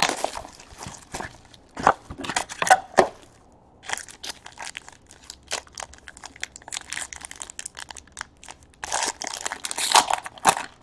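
Hands opening a trading-card box and tearing open the foil wrapper of the pack inside: a run of crinkling, tearing and rustling strokes, loudest near the end as the foil is pulled apart.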